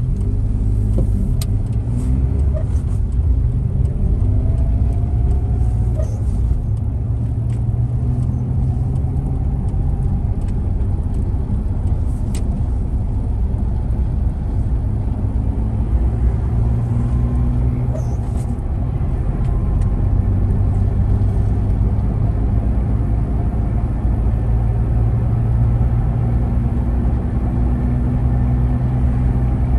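Moving car's engine and road noise: a steady low rumble with a faint engine hum that rises and falls a little. A few light clicks sound along the way.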